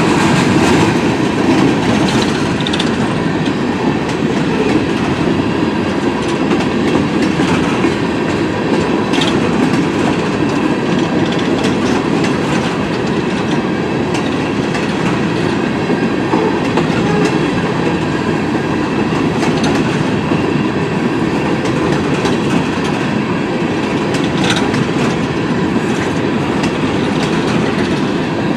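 Train rolling past on a main line: a steady rumble of railroad cars going by, with faint clicks of wheels over the rail.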